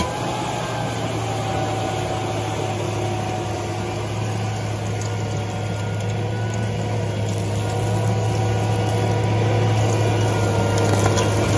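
Rayco RG80 stump grinder's gasoline engine running steadily under load while its cutter wheel grinds into an oak stump and the chip pile. It makes a steady drone that grows a little louder from about eight seconds in.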